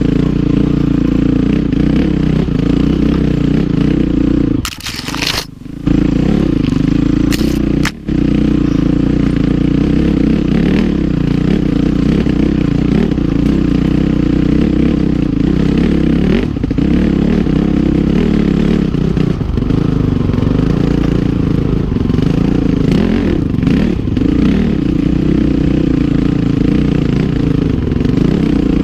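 Honda CRF450R's single-cylinder four-stroke dirt-bike engine running steadily under throttle while riding over rocky trail. The engine sound breaks off briefly twice, about five and eight seconds in.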